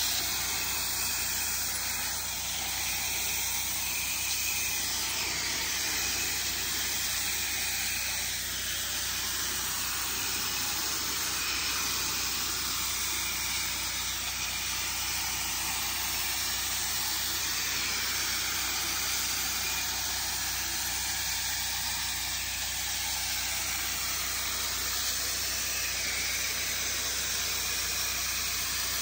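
High-pressure water from an X-Jet wand's fan tip spraying onto weathered wooden deck boards, rinsing off house-wash soap: a steady hiss. A steady engine hum runs underneath.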